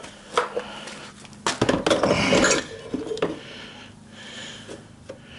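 Metal air-conditioning parts, such as a bracket, clattering and clinking as they are handled and set into a tub on scales: a few separate knocks with a busier burst of clatter about two seconds in.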